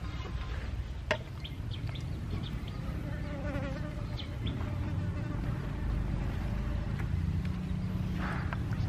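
A steady low buzz, with a sharp click about a second in and short high chirps above it. Meanwhile a kitchen knife slices raw squid on a wooden cutting board.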